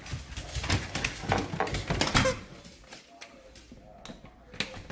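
A quick run of clicks and clattering for about two seconds, then a few fainter scattered clicks: small hard objects being handled.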